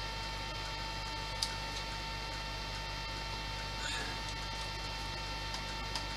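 Steady electrical mains hum with a thin steady high tone above it. There is a faint small click about a second and a half in and a soft rustle near four seconds in.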